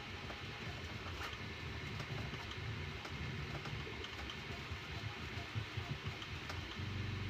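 Bambu Lab A1 Mini 3D printer running a print: its motors hum low, the tone shifting every second or so as the head moves, with a few faint clicks.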